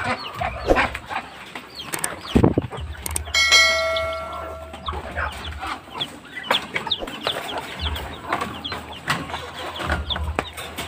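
Chickens clucking and chicks peeping in many short high chirps, with a few knocks in the first couple of seconds. About three seconds in, a bell-like ding rings out and fades over a second or so.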